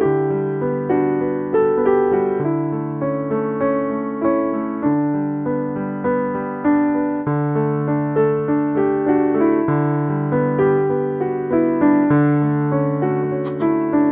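Background piano music: a gentle melody of evenly paced notes over low bass notes that change every couple of seconds.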